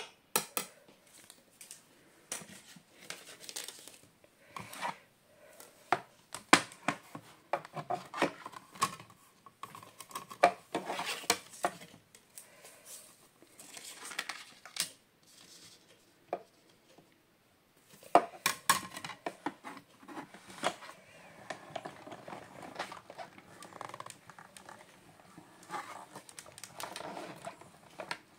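Handling of a manual die-cutting machine and its clear plastic cutting plates with cardstock and a metal circle die: irregular clicks, knocks and paper rustling as the plate sandwich is set up and cranked through the rollers to cut out circles.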